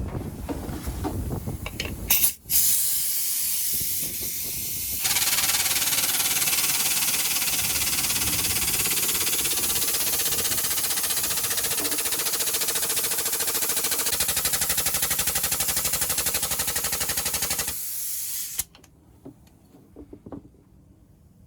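Compressed air hissing steadily, starting with a sharp click a couple of seconds in, growing louder about five seconds in, and cutting off a few seconds before the end.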